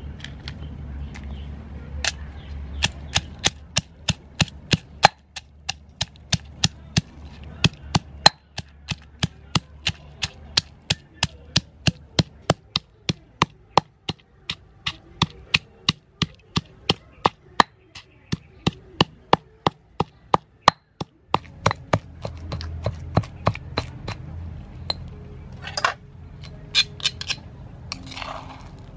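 Stone pestle pounding crab shell and meat in a stone mortar, a steady beat of about three strikes a second, crushing the crab to a paste. The pounding stops a few seconds before the end, and a spoon then clicks and scrapes against the pestle and mortar.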